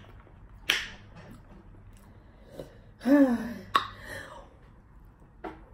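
Sharp finger snaps, one under a second in and another about three and three-quarter seconds in, with a short wordless vocal sound of rising and falling pitch around three seconds in.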